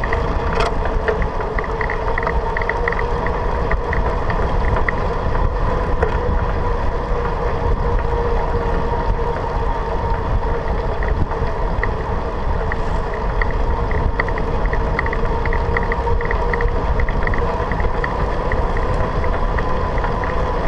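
Bicycle riding at speed on an asphalt path, heard from a handlebar-mounted camera: a steady low rumble of tyres and wind on the microphone, with a steady hum and a light ticking that comes and goes.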